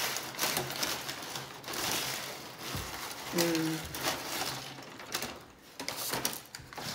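Close-miked eating sounds of someone chewing a burrito: rapid wet clicks and crackling, with a brief hummed "mm" about three and a half seconds in.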